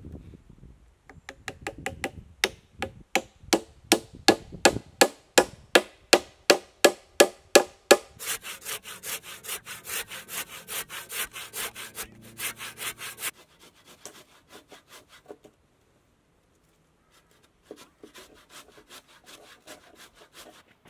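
A hammer drives a wooden peg into a log in quick, regular blows, about three a second. Then a hand saw cuts through a log in steady strokes, stops, and starts again more faintly near the end.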